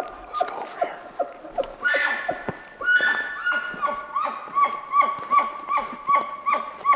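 A high, whistling elk bugle with overtones, rising into a louder scream about two seconds in, then held as a long tone broken into rhythmic pulses about two and a half times a second. Quick footsteps on forest ground thud in step underneath.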